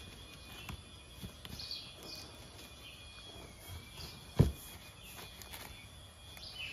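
Hands pressing and rustling soft stuffing into a cardboard box, with one sharp knock against the box about four seconds in. Birds chirp faintly in the background, over a thin steady high tone.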